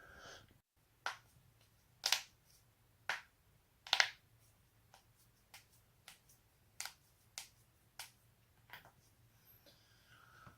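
Joints being cracked: a string of about a dozen sharp pops roughly a second apart. Some come as quick doubles, and the loudest are about two and four seconds in.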